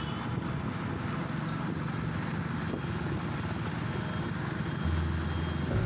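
Road traffic heard from a moving vehicle on a rain-wet street: steady engine and tyre rumble, with a deeper low hum joining about five seconds in.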